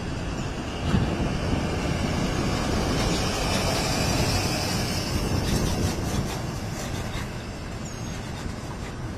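Jet aircraft engines running as a plane taxis past, a loud rumble and hiss that swells through the middle and eases off near the end.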